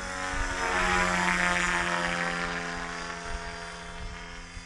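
Align T-Rex 550E DFC electric RC helicopter in flight: a steady motor and rotor whine with rotor hiss that swells louder about a second in, then slowly fades as it moves away.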